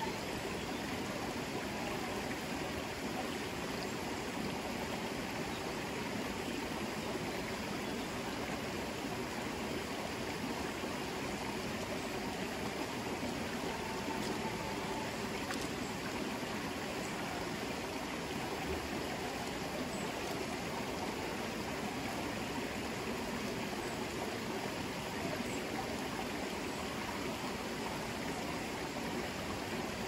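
River water flowing, a steady, even rushing.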